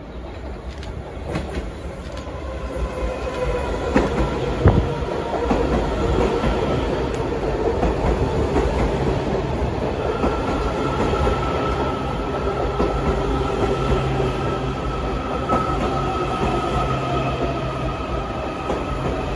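Washington Metro train pulling into the station. It grows louder as it approaches, its wheels clack over rail joints twice about four to five seconds in, and over a steady rumble its motors whine in a pitch that slowly falls as it slows.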